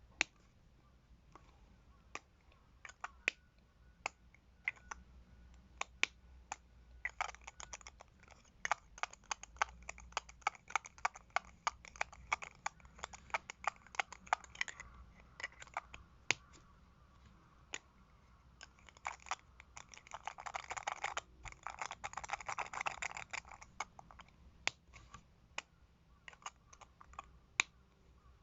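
Plastic cosmetic container lids clicking and tapping as they are opened, closed and handled: scattered sharp clicks, a fast run of clicks in the middle, and a couple of seconds of scratchy rubbing about twenty seconds in.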